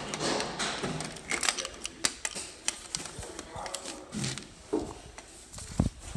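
Irregular clicking and clattering from a metal cluster mailbox being opened and handled with keys, ending in a heavier thump.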